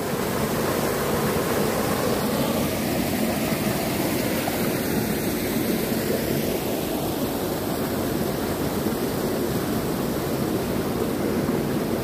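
Small waterfall of stream water pouring from a concrete outlet into a shallow pool: a steady rush of falling and churning water.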